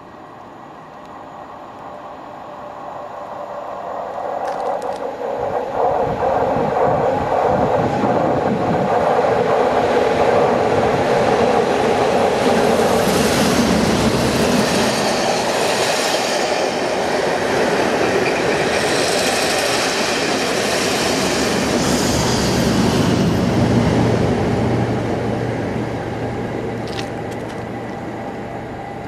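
Class 37 diesel locomotives with English Electric V12 engines passing with a train of test coaches: the sound builds over the first six seconds as the leading locomotive approaches, wheels clatter over the rails as the coaches go by, and a steady low engine hum near the end comes from the second locomotive before the sound fades.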